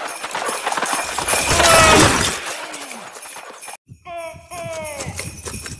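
Sound effects for a flying reindeer sleigh: clattering clicks build to a loud crashing rush that peaks about two seconds in. The sound cuts out suddenly just before four seconds, then a run of falling-pitch calls follows.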